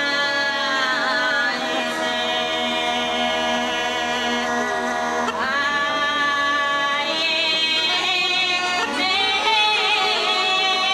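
A woman singing a Bulgarian folk song in a strong, open voice with ornamented turns, over several Bulgarian gaida bagpipes holding a steady drone beneath her. She starts new phrases about halfway through and again near the end.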